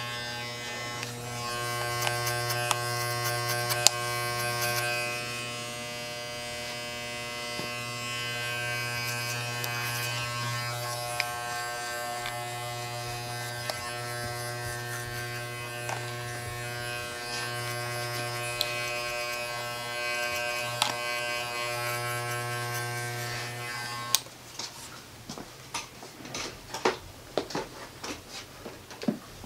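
Small electric hair clipper buzzing steadily as it tapers the hair at the back of the neck. It stops about 24 seconds in, and light irregular clicks and rustles follow.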